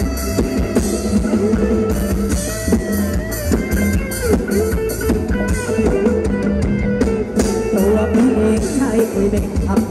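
Thai ramwong dance music from a live band: a steady drum-kit beat under a lead melody that slides in pitch.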